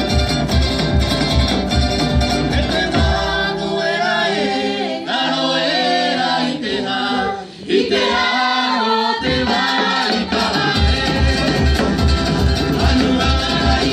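Live Rapa Nui dance music: group singing over a steady fast drum beat with instruments. The drums drop out for several seconds in the middle, leaving the voices and instruments, then come back in.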